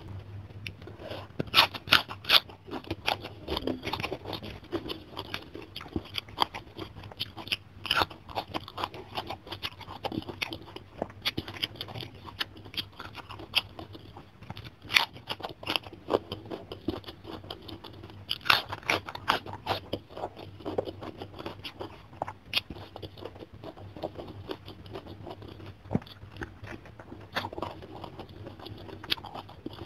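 Close-miked chewing with sharp, irregular crunches, from eating raw Chinese cabbage leaf dipped in sambal.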